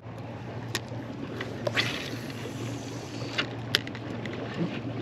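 Steady low hum and wind-like noise on a small boat, with three sharp clicks from a spinning rod and reel as a lure is cast and worked.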